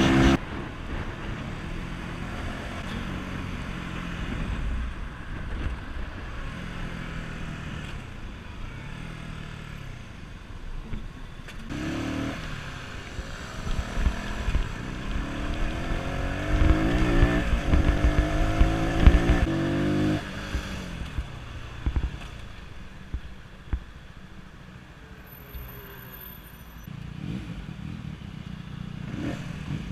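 Voge Brivido 125R motorcycle's stock single-cylinder engine and exhaust while riding. It runs low and steady at first, then from about twelve seconds in the pitch climbs in several steps through the gears, and drops back after about twenty seconds. Short knocks and clatter are scattered throughout.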